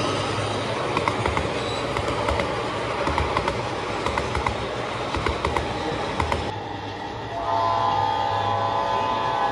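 G scale model freight train rolling past, its wheels clicking irregularly over rail joints above a steady low hum. About seven and a half seconds in, a model locomotive's sound system sounds a multi-tone diesel horn, held steady.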